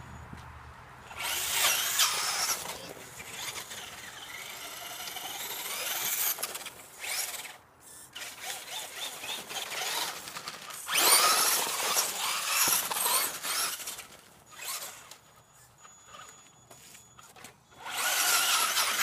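Radio-controlled car's motor whining in several bursts of throttle, its pitch rising and falling as it speeds up and slows, over wet, slushy pavement.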